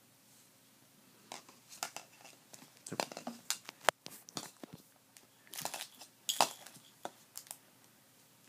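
Hard plastic rings of a Rock-a-Stack stacking toy knocking and clacking together as a baby grabs and waves them, an irregular scatter of sharp clicks with the sharpest knock about four seconds in.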